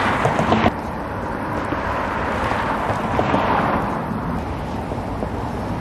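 Road traffic noise from cars passing on the street beside the canal, one swelling and fading about three seconds in, with some wind on the microphone.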